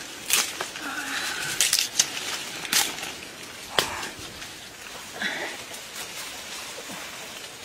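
Leaves and branches of a star apple tree rustling as fruit is picked by hand, with several sharp snaps and cracks in the first four seconds.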